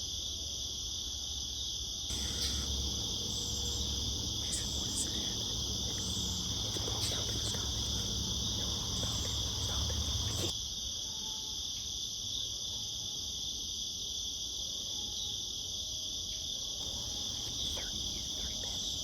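A steady, high chorus of crickets and other insects chirring without a break. From about two seconds in, a low rumble with scattered faint clicks joins it and stops suddenly about halfway through.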